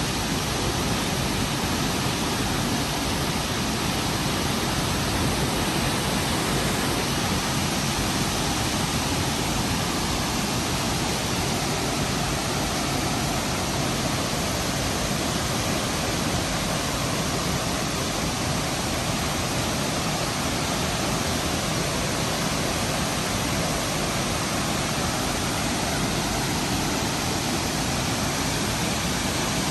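The 129-foot Burney Falls: a steady, unbroken rush of falling water.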